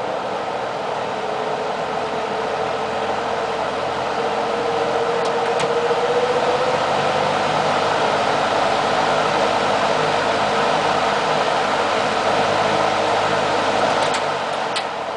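GE F17W13 electrically reversible 20-inch box fan running: a steady rush of air with a motor hum that sinks slightly in pitch over the first several seconds. A few light clicks near the end.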